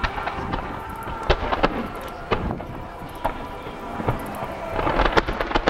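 Aerial firework shells bursting in quick succession, sharp reports scattered through and coming thicker near the end, over music played through loudspeakers.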